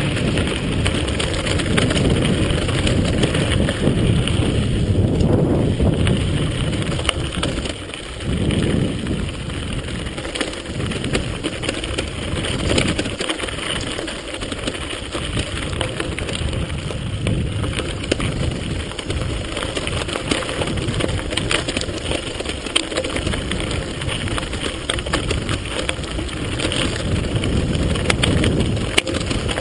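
Mountain bike running fast downhill over a loose gravel and stone track: a steady rumble of tyres on the stones, with many short clicks and knocks from the bike rattling over the rough surface, and wind buffeting the microphone.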